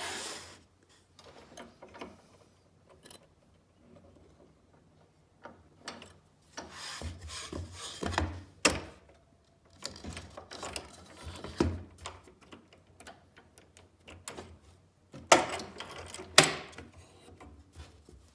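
Hands working a scroll saw while the blade is fitted: scattered mechanical clicks, ratcheting and small knocks as clamps and tension parts are handled, with two sharper knocks near the end. The saw is not running.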